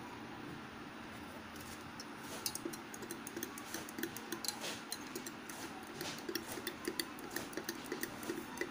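A metal spoon stirring liquid in a drinking glass, clinking against the glass many times at an uneven pace from about two seconds in.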